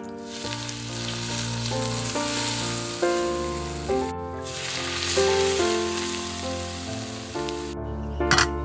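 Hot oil poured over a fried fish piled with dried chilies, chili powder, scallions and sesame seeds, sizzling sharply as it hits the spices. The sizzle breaks off briefly about four seconds in and stops near the end, followed by a few light clacks of a pan.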